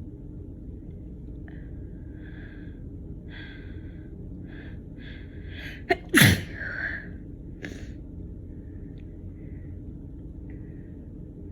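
A woman's sneeze: a run of short, catching in-breaths builds up for a few seconds, then one loud sneeze bursts out about six seconds in, followed by a quieter breath.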